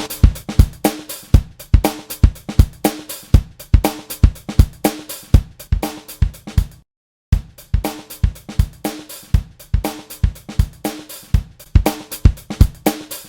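Funk drum-kit loop playing in a steady groove of kick, snare and hi-hat. It stops briefly about seven seconds in, then starts again. It is being run through Logic's Enveloper transient-shaper plugin, which gives the snare a hard punch.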